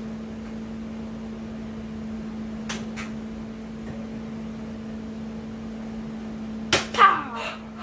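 Bug-A-Salt salt gun fired once near the end with a sharp snap, followed at once by a person's yelp as the salt hits between the toes. Before it, two light clicks and a steady low hum in the room.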